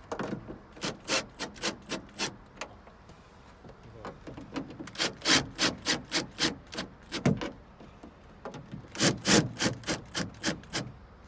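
Hand ratchet wrench tightening the air conditioner's mounting bolts, three runs of quick repeated strokes with short pauses between.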